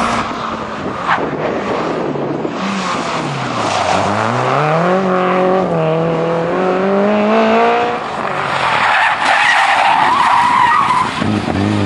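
Rally cars at speed on a special stage: a small hatchback rally car's engine revs hard, its pitch dropping and climbing again as it pulls away. Then comes a stretch of rough tyre noise, and near the end a red Toyota Celica rally car's engine climbs in pitch.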